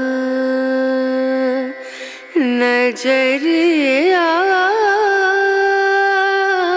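Background music: a Carnatic-style melody of long held notes with sliding ornaments. It drops away briefly about two seconds in, then picks up again.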